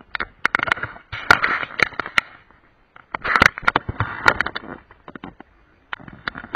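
Crackling, clicking handling noise from a camera being touched and moved, in three bursts of a second or two with short gaps between.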